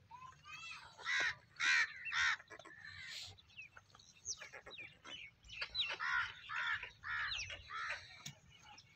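Crows cawing: a run of loud, harsh caws about a second in and another run from about six seconds in, with small birds chirping between them.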